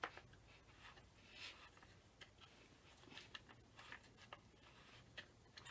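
Faint, irregular small clicks and ticks of an Allen wrench working the rear Allen screws of a Magpul Hunter rifle stock.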